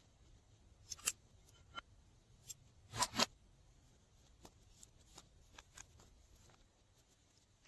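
Slime being worked by hand, giving a scatter of short sticky clicks and pops, the loudest a quick pair about three seconds in.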